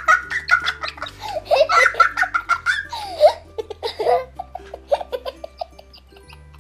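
Two children laughing hard in giggles and shrieks, dense for the first few seconds and then thinning out.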